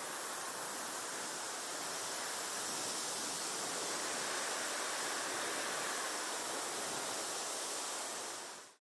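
Steady, even rushing noise that fades out near the end.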